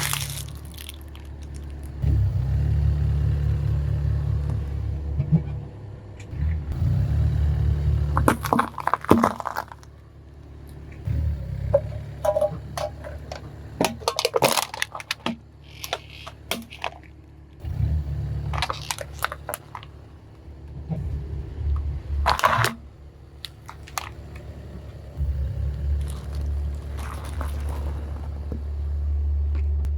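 A car's engine running at low speed as its tyres roll over and crush crunchy objects, with a series of sharp cracks and crunches under the wheels. The rumble of the engine stops and starts between short clips.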